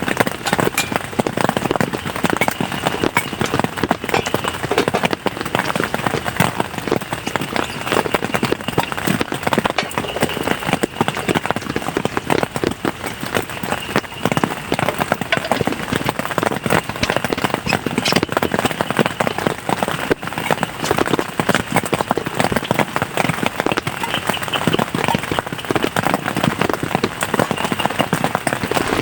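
Heavy rain falling steadily, a dense patter of many drops hitting a surface close by.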